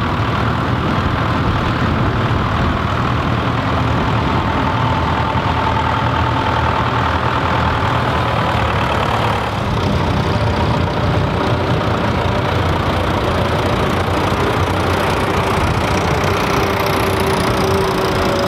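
Several vintage four-wheel-drive tractors' engines running together at low speed as they drive past, a steady, loud, low rumble with some knocking.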